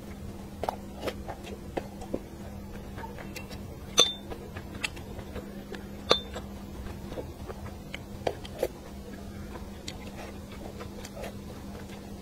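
Close-miked eating sounds of braised fish, with small wet mouth clicks and chopsticks tapping the dish. Two sharp ringing clinks of the chopsticks against the dish come about four and six seconds in. A steady low hum lies under it all.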